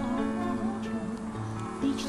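Background music: a song with acoustic guitar.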